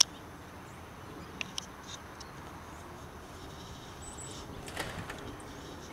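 Quiet outdoor ambience with a few faint clicks and a short high chirp about four seconds in.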